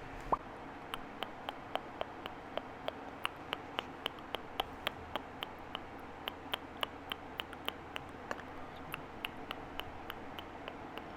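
Close-miked mouth sounds: a steady run of small, sharp clicks and lip pops from the lips and tongue, about three a second, over faint microphone hiss.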